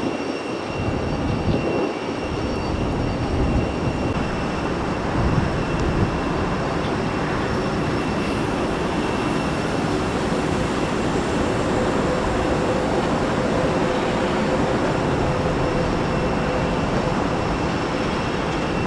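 Jet airliner engine noise: a steady rumble with a faint whine that becomes audible about halfway through.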